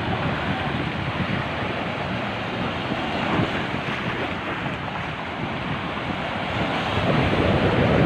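Sea waves washing in and breaking against shoreline rocks, with wind buffeting the microphone; the surf grows louder near the end.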